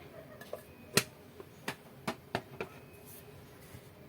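About five light, sharp taps of a spoon on a bowl as a small spoonful of cornstarch goes into the seasoning. The first tap, about a second in, is the loudest, and the rest follow within the next second and a half.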